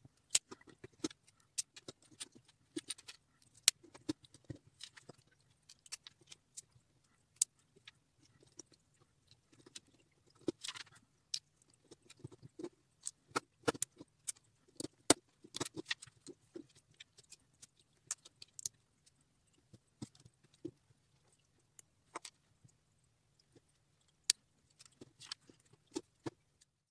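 Lego bricks and small plastic pieces clicking and clattering as they are picked from a pile and pressed together by hand: irregular sharp clicks, over a faint steady low hum.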